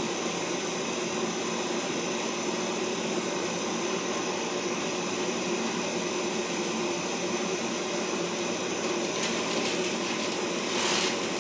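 Pet grooming blower (high-velocity dog dryer) running steadily, its motor and airflow making a continuous whooshing hum. Near the end the hiss of the air grows brighter, with one short louder gust.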